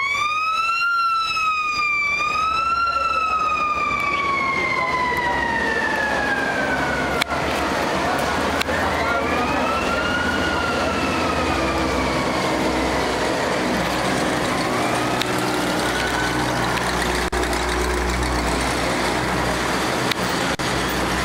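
A siren wailing, its pitch rising and falling a few times, then gliding slowly down and fading by about seven seconds in, with two fainter wails after. Underneath, the low rumble of passing WWII-era military vehicle engines, louder near the end as a truck goes by close.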